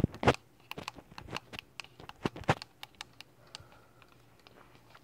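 Keypad buttons of a Sangean HDR-14 portable HD radio being pressed and the radio handled: a string of irregular small clicks and taps through the first three seconds, thinning out after that.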